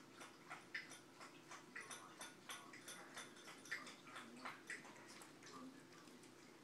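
Light, irregular clicking and tapping of small pets' claws and paws on a hardwood floor, a few clicks a second, thinning out near the end.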